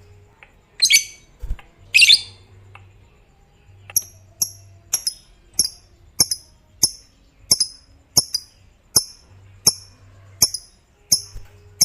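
Lovebird calling: two harsh shrieks in the first couple of seconds, then a steady run of short, high chirps about every two-thirds of a second, each with a sharp click.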